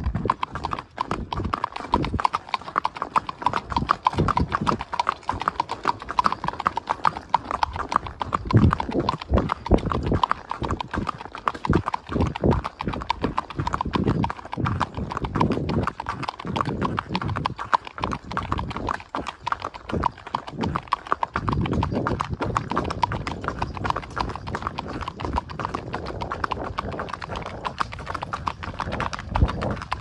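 Hoofbeats of a Tennessee Walking Horse gelding on asphalt pavement: a quick, steady clip-clop of sharp hoof strikes as he is ridden along at his walking gait.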